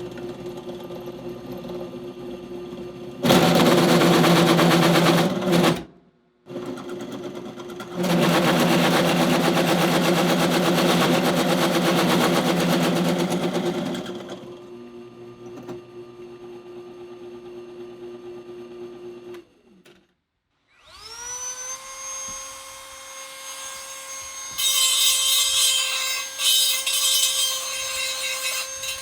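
Power drill driving a hole saw to notch steel pipe: the motor runs steadily, then the saw bites in with two long, loud stretches of harsh cutting that stop abruptly. About 21 s in a power tool's motor spins up to speed and harsh cutting starts again near the end.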